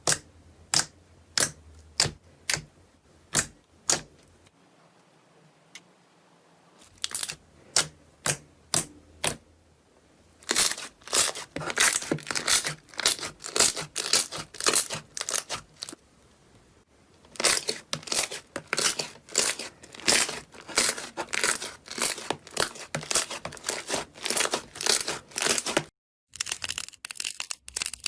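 Slime being pressed and stretched, giving sharp pops about twice a second at first, then a dense run of crackling pops from about ten seconds in.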